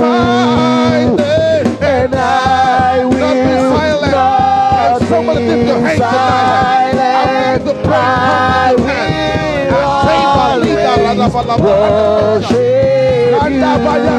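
Church worship music: a worship song with a singing voice over held, steady instrumental chords.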